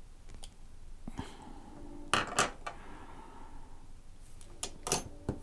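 Light clicks and clinks of small metal tools and a diecast car being handled on a work surface, in scattered knocks with the loudest pair about two seconds in and another cluster near the end.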